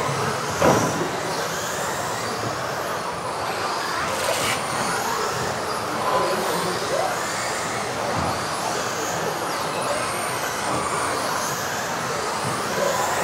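Electric RC off-road buggies racing on an indoor carpet track: thin high motor whines rise and fall as the cars accelerate and brake, over a steady wash of noise in the hall, with one sharp knock a little under a second in.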